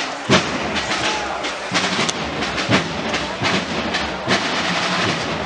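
Snare and bass drums of a cornet-and-drum procession band, beating irregularly amid a dense crowd hubbub.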